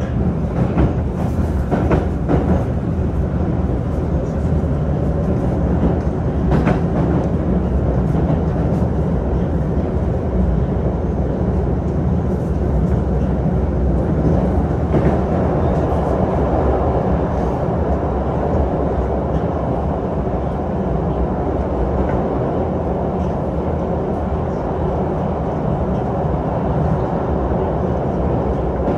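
Moscow Metro 'Moskva 2020' (81-775 series) train running at speed through the tunnel, heard from inside the car. A steady, loud rumble of wheels and running gear, with a few sharp clicks in the first seconds.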